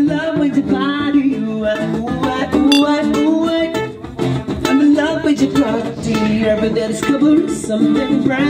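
Background music: an upbeat song with plucked guitar and a singing voice.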